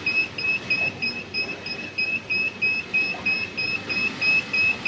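Electronic alarm buzzer on a conveyor control panel beeping rapidly and evenly, about four short high beeps a second, over low machine noise.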